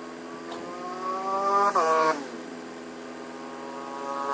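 Crane truck's engine revving up, then dropping back sharply about two seconds in, and rising again near the end. The engine is being raised to drive the truck-mounted crane while posts are set.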